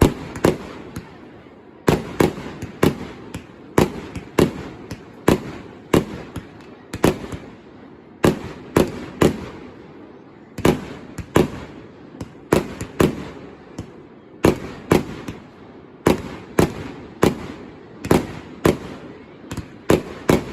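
Fireworks going off in rapid succession: dozens of sharp bangs, often two or three in quick clusters, over a continuous rumble between them.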